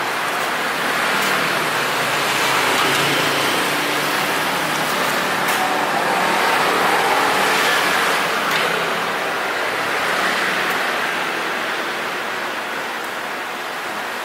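Road traffic passing on the street: a steady rush of tyres and engines that swells and eases as vehicles go by.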